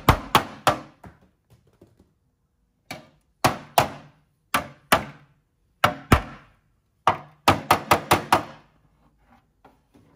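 A ball-peen hammer strikes a steel sheet-metal panel held against a backing tool, shaping the metal. About fifteen sharp metal blows come in short runs, each ringing briefly, ending with a quick run of six blows a little before the end.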